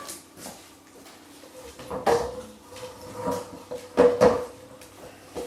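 Metal clattering: a few sharp knocks and rattles, the loudest two in quick succession past the middle, each leaving a steady metallic ring.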